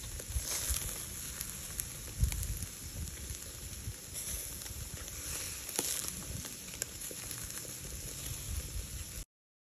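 Skewered meat sizzling over a bed of glowing charcoal, a steady hiss with occasional sharp pops and crackles. It cuts off abruptly near the end.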